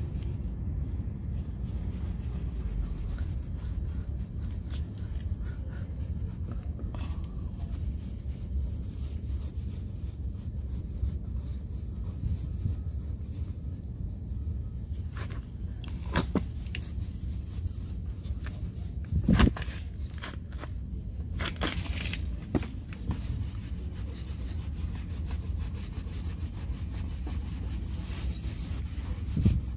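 Microfiber rag rubbing scratch remover into a metal running board: a steady low rubbing noise, with a few sharp knocks, the loudest about two-thirds of the way in and another near the end.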